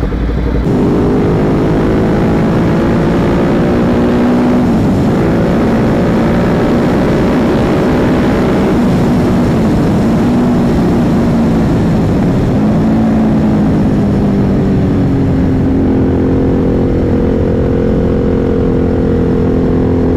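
Motorcycle engine running under way, with wind rushing. The engine pitch climbs slowly and drops back at about five and nine seconds in, as with gear changes, then settles steadier near the end.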